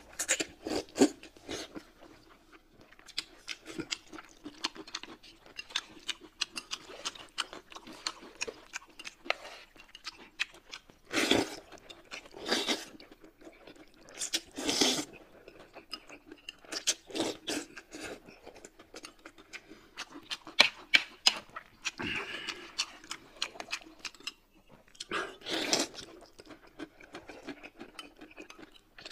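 Close-up eating sounds: wide flat noodles being slurped and chewed, with wet mouth clicks and smacks throughout and a handful of louder slurps of about half a second each.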